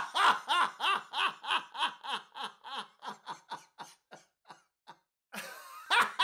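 A man laughing hard, a rhythmic string of 'ha' bursts about three a second. The laughter slowly dies away, stops briefly near the end, then breaks out again loudly.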